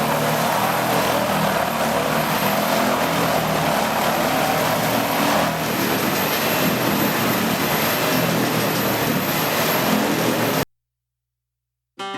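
Large industrial wood chipper running with a steady, loud mechanical noise, cutting off suddenly about ten and a half seconds in.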